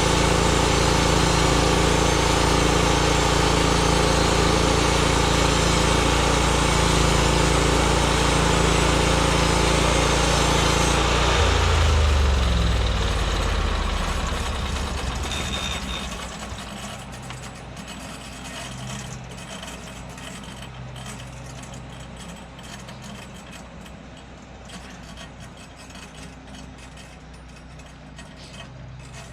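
Small gasoline engine of a portable bandsaw mill running steadily, then shut off about eleven seconds in, its pitch falling as it winds down to a stop. A faint low hum is left afterward.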